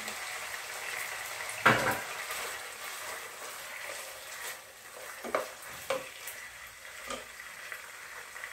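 Chicken pieces sizzling in hot sunflower oil and tomato sauce in a steel pot while being stirred with a wooden spatula. A sharp knock comes about two seconds in, and a few lighter knocks follow later on.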